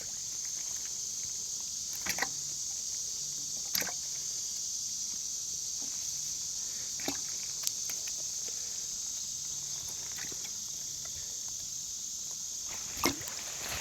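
A steady, high-pitched chorus of insects such as crickets, with a few short clicks and knocks scattered through it, the loudest near the end.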